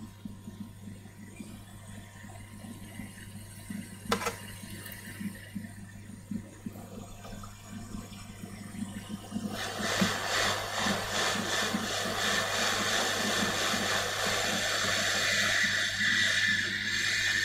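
Hot air rework station blowing, a steady airy hiss that starts about nine and a half seconds in, as the baseband chip is reflowed back onto the board. Before it there is a low electrical hum and a single click about four seconds in.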